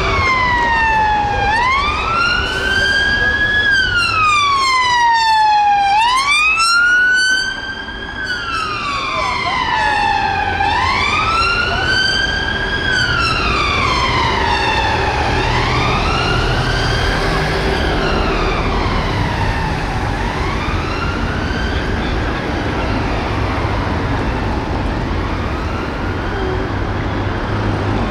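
Metropolitan Police Vauxhall Astra's siren sounding a slow wail, its pitch rising and falling every four to five seconds. It grows fainter over the second half, with road traffic running underneath.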